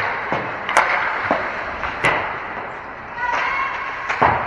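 Ice hockey play: three sharp clacks of sticks and puck, a little over a second apart and the last the loudest, over the steady noise of the rink.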